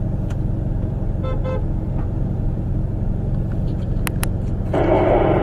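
Steady low rumble of the vehicle's running engine, heard inside the cab as it rolls to a stop. Two short horn-like toots come about a second and a half in, and a louder, harsher noise starts near the end.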